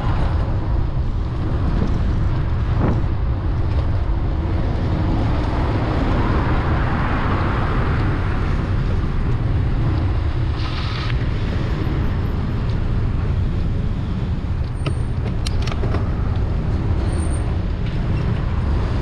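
City street traffic heard from a moving bicycle, over a strong steady low rumble of wind on the microphone. A vehicle swells past about midway, there is a short hiss about eleven seconds in, and a few sharp ticks come near the end.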